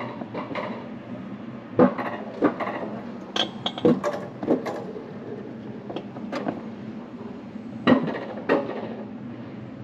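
Wiegand Alpine Coaster sled being hauled up the cable lift hill, rattling on its steel rails: irregular metallic clanks and knocks, roughly one or two a second, over a steady low rumble.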